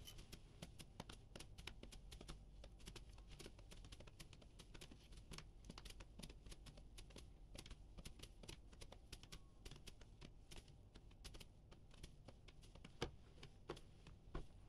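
Near silence with faint, irregular ticking and rustling, several small clicks a second, and a couple of slightly louder ticks near the end.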